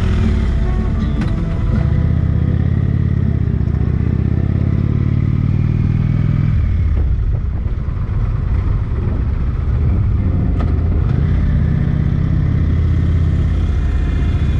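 A motorcycle engine running under way. It eases off about six and a half seconds in, then pulls steadily again.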